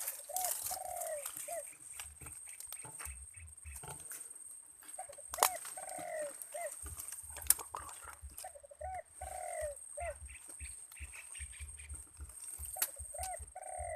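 Spotted dove cooing: four phrases a few seconds apart, each a few short arched coos with one longer rolling coo in the middle. Two sharp clicks come about five and seven and a half seconds in.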